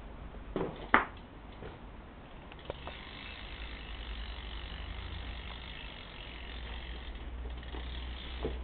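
Stock rear hub of a BMX bike freewheeling as the wheel spins, a steady fast buzz of pawl clicks that is not very loud, starting about two and a half seconds in. Two sharp knocks from handling the bike come just before it.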